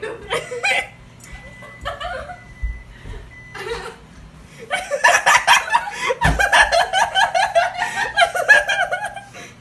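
Laughter: short bursts at first, then continuous hard laughing for the last four seconds or so.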